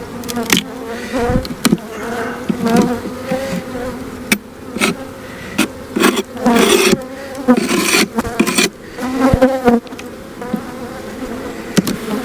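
Swarm of honeybees buzzing around an open hive, individual bees passing close with the pitch bending up and down, with a few sharp knocks scattered through.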